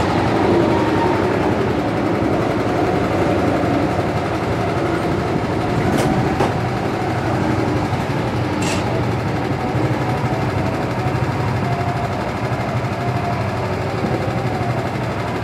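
Small petrol engines of rental go-karts idling steadily in the pit lane, a continuous mechanical hum. A sharp click about six seconds in and a short hiss a few seconds later.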